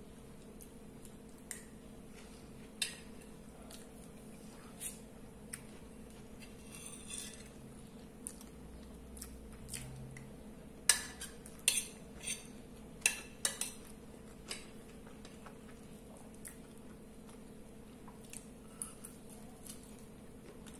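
Metal spoon clinking and scraping against a ceramic plate as food is scooped up, in scattered clinks with a run of louder ones about halfway through.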